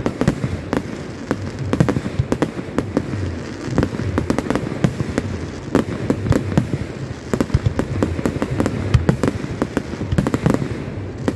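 Aerial firework shells bursting in quick succession: a dense, uneven run of sharp bangs and crackles, several a second, over a steady low rumble.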